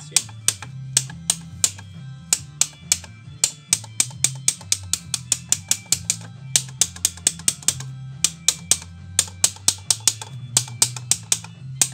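Quick, sharp taps on the underside of a 2 mm glass sheet, about four a second, knocking along a scored circle to run the crack all the way round so the round glass breaks free. Background music with a low bass line plays underneath.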